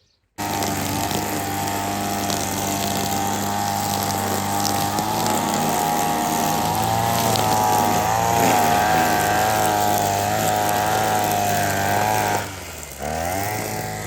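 Petrol brush cutter's small engine running fast and steady, cutting in abruptly. Near the end the revs drop sharply for about a second and pick up again.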